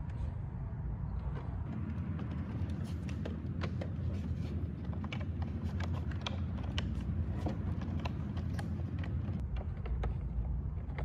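Light, irregular clicks and taps of a plastic car door trim panel being handled and pressed into place against the door, over a steady low background hum.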